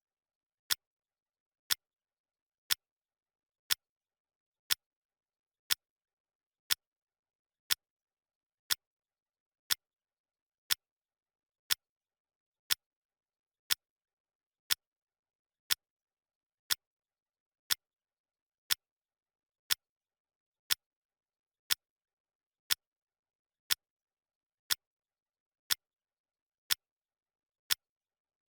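Clock ticking sound effect: single sharp ticks, evenly spaced one per second, with dead silence between them.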